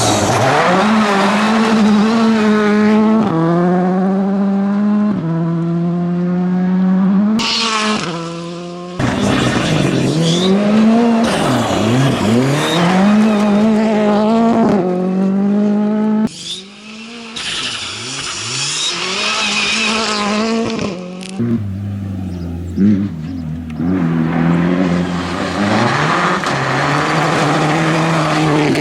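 WRC2 rally cars driven hard on a stage. The engine note repeatedly climbs through the revs and drops back at each gear change, with lifts and dips where the cars brake and turn. The sound cuts abruptly between separate passes.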